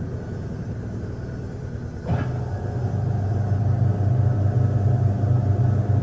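Haier fully automatic top-load washing machine running its tub dry cycle: the empty drum spinning with a steady low motor hum, which grows louder about two seconds in.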